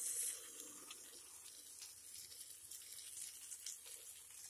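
Small onions sizzling in gingelly oil in a pan just as wet crushed tomato pulp goes in; the hiss is loudest for a moment at first, then settles to a steady low sizzle, with a couple of faint spoon scrapes.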